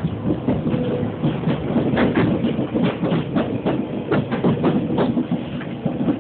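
Wheels of a Seibu 2000 series electric train clattering over turnouts and rail joints, heard from inside the rear car: an uneven run of sharp clacks, several a second, over a steady running rumble.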